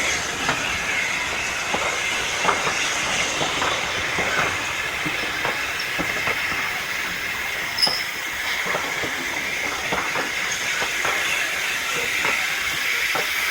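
Steam train moving slowly: a steady steam hiss over irregular clanks and clicks from the wheels and couplings.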